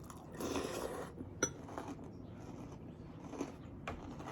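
Faint household handling noises: a soft rustle lasting about half a second, then a sharp click, followed by a few small ticks.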